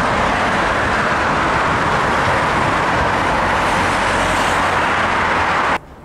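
Steady roar of multi-lane road traffic: the hiss of many cars' tyres and engines blended together. It cuts off abruptly near the end.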